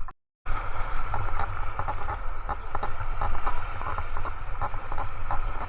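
Sea water and wind against a camera microphone: a steady low rumble with scattered crackles and clicks. A brief dropout comes just after the start.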